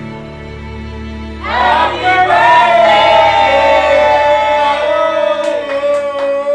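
Soft background music holding a chord, then about a second and a half in a group of voices breaks in together, loud, on one long held note that sags a little in pitch, like a drawn-out sung birthday greeting. A few sharp claps come near the end.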